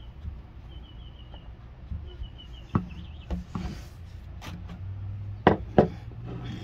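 Sharp knocks and taps of hand work on a wooden workbench: a few separate strikes, then two loud ones close together near the end. Faint high chirps come early on, and a low steady hum sets in about five seconds in.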